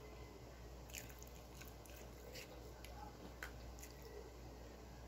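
Very faint mouth sounds of a person drinking soda from a plastic bottle: a few scattered small clicks of lips and swallowing over a low steady hum.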